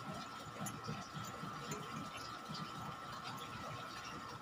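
Faint light clicking and scraping of a thin steel oil-ring rail being worked by hand into its groove on a Honda XRM110 piston, over a steady faint hum.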